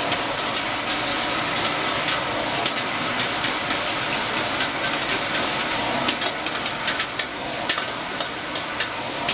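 Stir-frying in a wok over a high-flame gas burner: a steady sizzling hiss of food in hot oil, with the metal ladle clicking and scraping against the wok, more often in the last few seconds.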